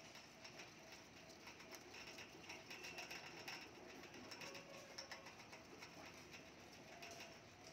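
Faint, irregular scratching, rustling and small clicks of dwarf hamsters moving through wood-shaving bedding and picking at seed mix in a food bowl.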